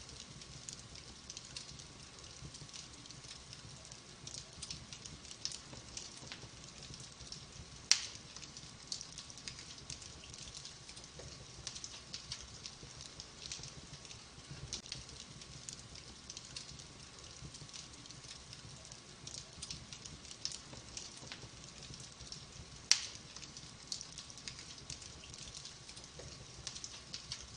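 Wood fire crackling in a fireplace: a continual run of small crackles, with two sharp louder pops, one about eight seconds in and another some fifteen seconds later.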